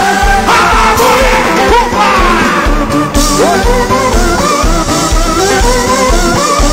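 Loud live band music: electronic keyboard over a steady thumping bass beat, with a voice singing.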